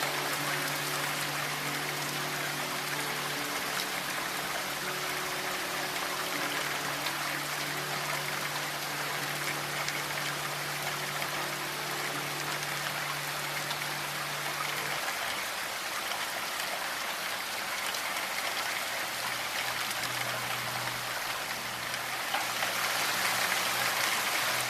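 Steady hiss of falling rain, with soft, sustained low drone notes of ambient music underneath that shift to a lower note a little past the middle.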